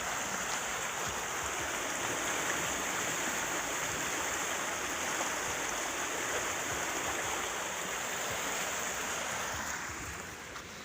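Floodwater from heavy rain rushing in a steady torrent. The rushing falls off somewhat near the end.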